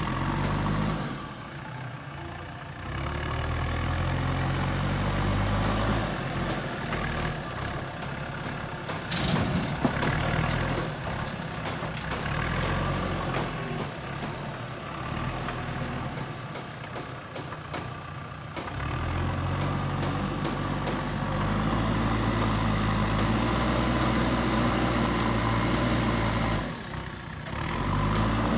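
JCB backhoe loader's diesel engine working under hydraulic load. It runs harder for stretches and eases back between them, with one sharp knock about ten seconds in.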